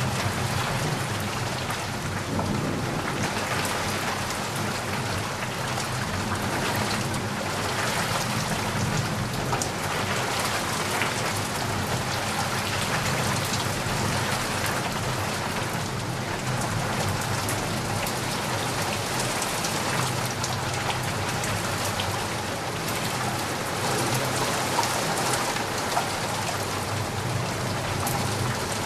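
Steady rain falling and pattering on surfaces, an even hiss of drops. A low rumble runs beneath it, strongest in the first couple of seconds.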